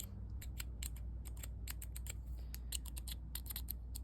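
All-titanium Chaves Ultramar clicker pen being clicked over and over: a quick, uneven run of sharp, light clicks, about five or six a second.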